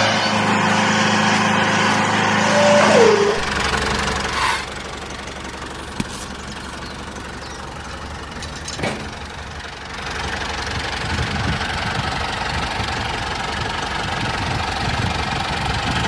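A DIY mini tractor's small motor running steadily. About three seconds in, its tone drops and turns rougher, as if put under load, with a couple of sharp clicks later on.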